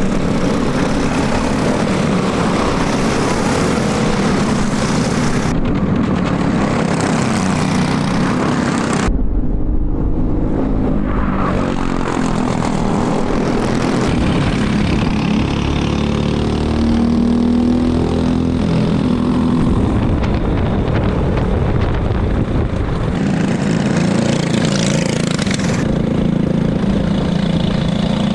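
Briggs & Stratton LO206 single-cylinder four-stroke kart engines running at race pace, the engine note rising and falling as the karts brake and accelerate. The sound changes abruptly several times.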